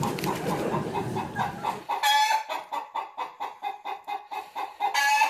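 Domestic hen clucking in a steady run of short calls, about four a second, with two louder, drawn-out squawks, one about two seconds in and one near the end.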